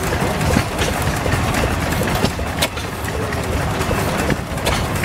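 1891 Van Duzen walking-beam single-cylinder gas engine running, with sharp knocks at uneven intervals, roughly one or two a second, over a steady low rumble.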